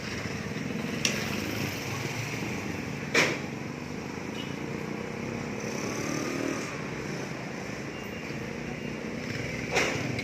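Steady vehicle and street traffic noise while travelling along a road, with a few sharp clicks or knocks, the loudest about three seconds in.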